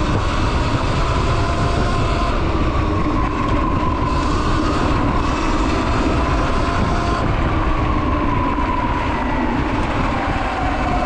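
Sur Ron X electric dirt bike riding fast over a gravel fire road: a steady rumble of tyres and wind noise, with the electric motor's thin whine slowly rising and falling in pitch as the speed changes.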